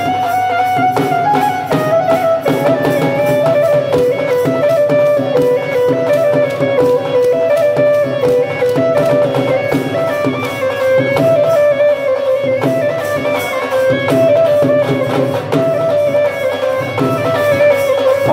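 Live instrumental Punjabi folk music: a stepping melody over a fast, steady dhol beat.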